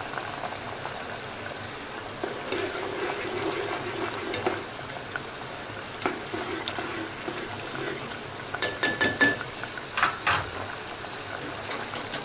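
A pot of sauce boiling hard, with a steady bubbling hiss, while a ladle stirs it. About two-thirds through, a quick run of four or five sharp clicks, then two more knocks a second later, as the ladle knocks against the pot.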